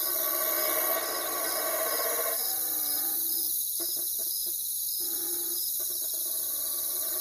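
Night chorus of crickets and other insects chirring steadily, with a regular pulsing chirp, under low hooting of an owl that comes and goes.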